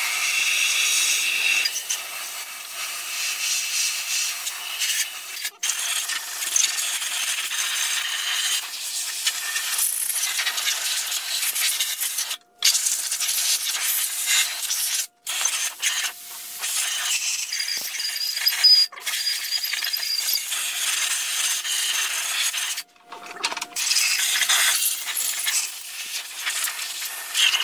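Scratchy scrubbing and rubbing on the bare cast-iron cylinder block of a 7.3 Powerstroke diesel as it is cleaned by hand after machining. The sound is steady and breaks off briefly several times.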